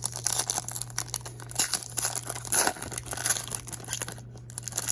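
Plastic wrapper of a baseball trading card pack being torn open and crinkled by hand: dense crackling with sharp snaps, easing off briefly near the end. A steady low electrical hum sits under it.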